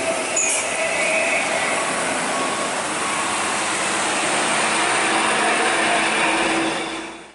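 Diesel engine and tyres of a Hino FG truck passing close by: a loud, steady rush of engine and road noise.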